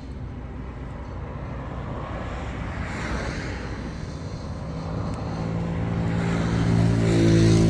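A motor vehicle's engine running with a steady low hum that grows gradually louder, loudest near the end.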